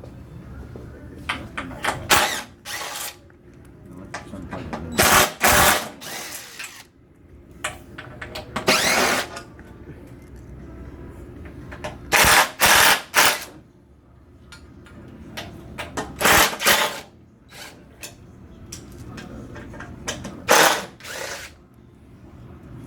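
Power drill-driver backing screws out of an aluminum display frame in short whirring bursts, one run every few seconds with brief blips between.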